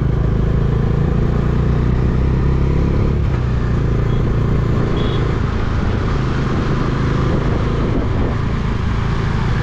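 Motorcycle engine running at a steady cruise, heard on board the rider's own bike, with wind noise over the microphone.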